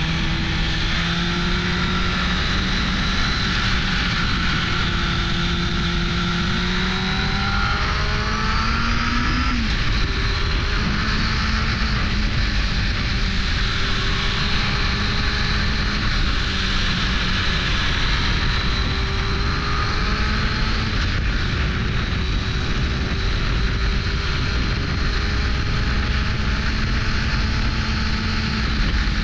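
1998 Suzuki GSX-R 600 SRAD's inline-four engine under way, its note climbing steadily for about nine seconds, then dropping sharply and holding fairly steady after that, with wind rushing over the microphone.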